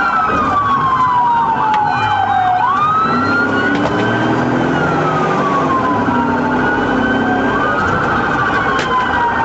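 Police sirens wailing in slow falling and rising sweeps, several overlapping, over steady road and engine noise heard from inside a pursuing patrol car.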